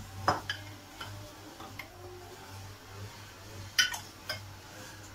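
A few light clicks and taps of a glass jar and kitchen utensils being handled on a counter, the sharpest a quick double click near the end, over a steady low hum.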